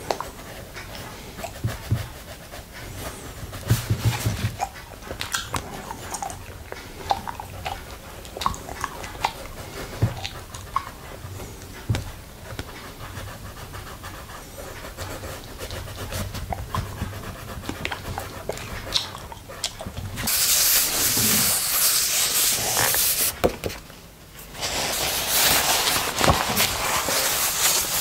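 Close-miked wet licking of a glass plate coated with popping candy: many small tongue clicks and crackles. In the last third come two stretches of louder, breathy rushing noise, each a few seconds long.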